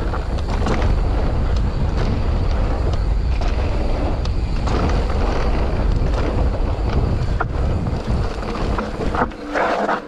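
Wind buffeting the camera microphone and mountain-bike tyres rolling fast over a dirt and gravel trail, with scattered rattles and knocks from the bike over bumps. The rush eases off about nine seconds in as the bike slows.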